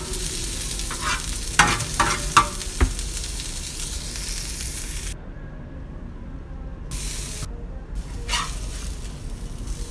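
Sliced shallots, garlic, chilies and lemongrass sizzling in oil in a wok, stir-fried until half-cooked. A metal spatula scrapes and clicks against the pan several times in the first few seconds and once more near the end. The sizzle thins for a couple of seconds past the middle.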